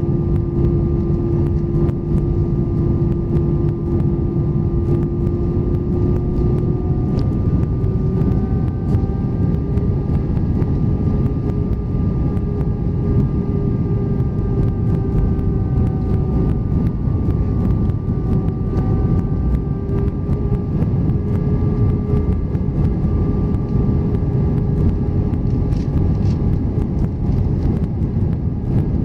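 Airbus A320 cabin noise heard inside the cabin over the wing during the descent: a steady rush of air and engine drone, with a hum that rises slightly in pitch about seven seconds in.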